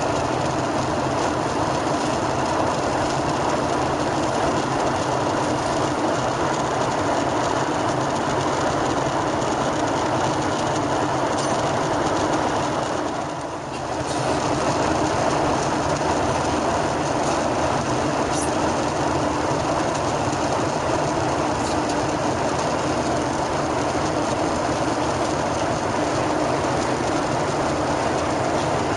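Steady cabin noise of a Boeing 737-800 in cruise, heard from inside the cabin: an even rush of airflow and engine noise with a faint low hum, dipping briefly about halfway through.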